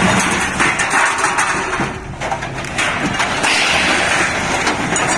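Scrap metal clattering and crashing as a load of junk slides off a tipper truck's raised bed onto a scrap pile: a dense run of metallic knocks and scraping, with a brief lull about two seconds in.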